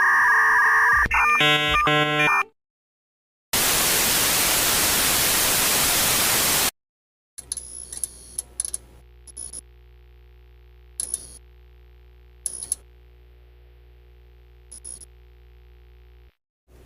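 A run of separate electronic device sound effects: first a quick series of stepped electronic beeps, then about three seconds of loud white-noise static hiss, then a steady low electrical hum broken by scattered clicks and short high chirps.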